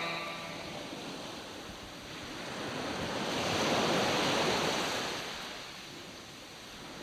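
A swell of rushing, surf-like noise that builds to a peak about halfway through and then fades away again.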